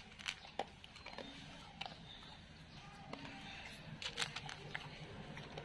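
A dog eating dry kibble from a plastic bowl: scattered crunches and clicks, with a quick cluster of them about four seconds in.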